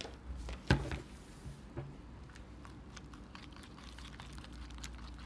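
Spoon stirring a sticky slime mixture in a plastic bowl: faint scraping and small clicks, with one sharper knock less than a second in.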